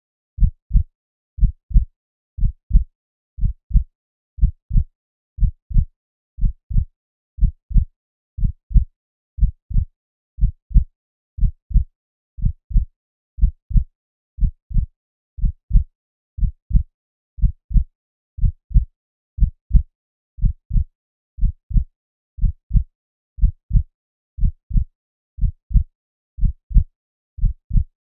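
Human heartbeat sound effect at 60 beats per minute: a steady lub-dub double thump, about one pair each second, deep and bass-heavy.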